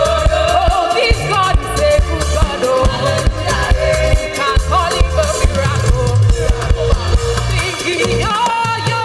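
Live gospel praise music: a band with strong bass and drums, with sung vocals over it.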